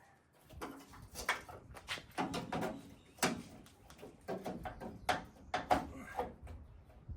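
A string of irregular knocks, clunks and scrapes from hand work on a pickup's front-end body parts during disassembly.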